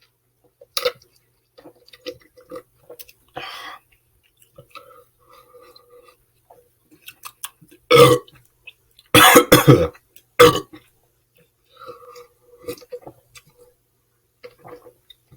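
A person chugging a hard seltzer with small quiet swallowing sounds, then several loud burps in quick succession past the middle.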